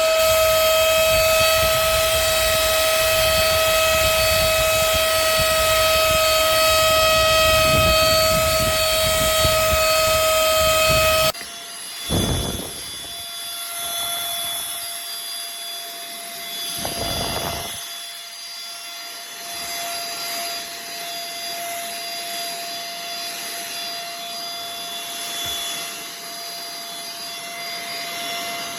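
Duck compact cordless handheld vacuum running, its motor giving a steady whine over rushing air. About eleven seconds in, the rushing drops off suddenly and the whine carries on quieter, with two brief low bumps.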